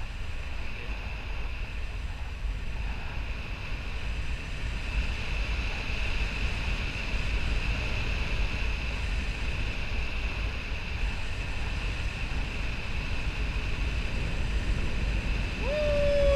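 Airflow buffeting the camera microphone of a paraglider in flight: steady wind noise with a low rumble. A short falling tone sounds near the end.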